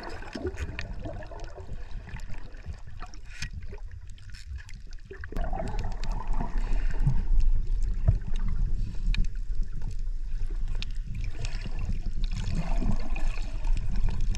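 Water sloshing and splashing under a heavy low rumble, which grows louder about five seconds in.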